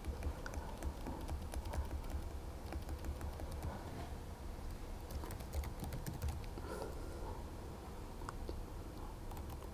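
Typing on a laptop keyboard: quick, irregular key clicks, thinning out in the last couple of seconds, over a steady low hum.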